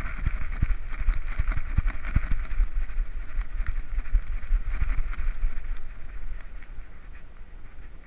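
Wind rumble and jostling knocks on a GoPro strapped to a walking dog's back, the camera bumping irregularly with its steps. The rumble eases after about six seconds.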